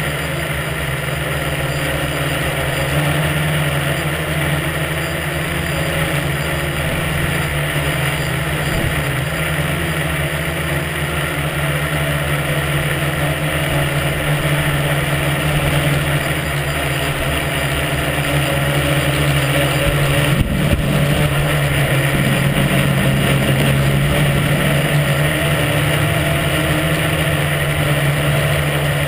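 Tricopter's electric motors and propellers whirring steadily, heard close up from the camera mounted on the aircraft as it flies. A brief low rumble breaks in about twenty seconds in.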